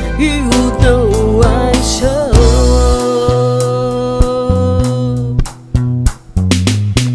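Live band playing a romantic pop ballad: a wavering lead melody, then one long held note, then a run of separate bass and drum hits with brief gaps between them near the end.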